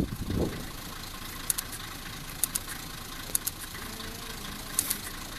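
Diesel engine of a Nanbu Jukan Railway railbus idling steadily, with sharp light ticks, often in pairs, every second or so.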